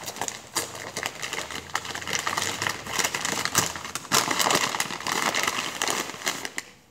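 Large kraft-paper sack being pulled and torn open at the top, the stiff paper crackling and rustling with many sharp crinkles.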